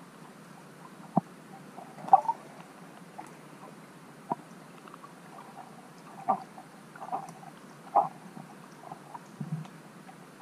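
Underwater sound picked up by a submerged camera: a steady hiss with scattered sharp clicks and short bubbly pops every second or two, and a low burble near the end.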